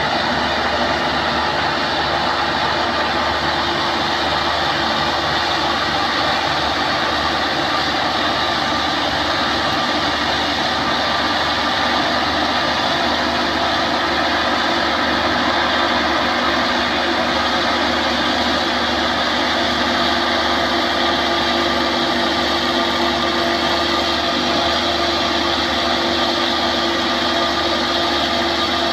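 Crown tracked rice combine harvester's diesel engine running steadily as the machine creeps up loading ramps onto a truck bed.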